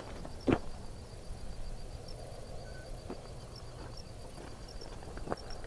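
Faint, steady high-pitched chirping of crickets over a low wind rumble on the microphone, with a sharp tap about half a second in and another near the end.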